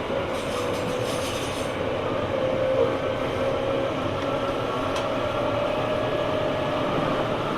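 Onboard running sound of a Tobu 9000 series armature-chopper electric train, car 9206: steady wheel and rail noise under a motor whine that steps slightly higher in pitch, with a brief hissing near the start. This car's traction motor sounds quite unlike a normal 9000 series, as if a different motor had been fitted for a trial.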